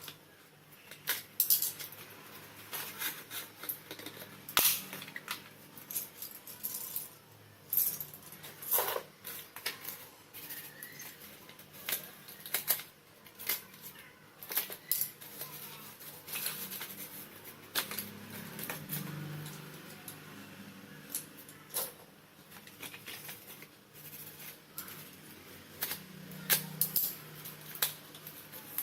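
Close-up, irregular sharp clicks, taps and snaps of slate pencils, some close together and some a second or more apart.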